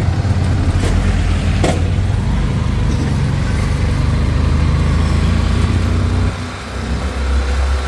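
Motorcycle engine of a tricycle (motorcycle with sidecar) running steadily as it rides along the road. The engine eases off about six seconds in, then picks up again near the end, with a couple of short knocks early on.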